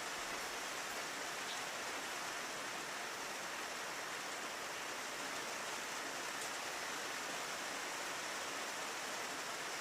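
Steady rain falling on a window: a dense, even hiss with a few faint ticks of single drops.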